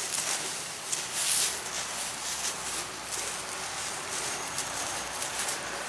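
Footsteps on wood-chip mulch, soft irregular crunches over a steady outdoor hiss.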